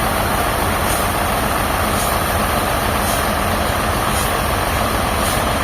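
Heavy engine-driven sawmill machinery running steadily, a deep continuous engine drone with a faint high tick repeating about once a second.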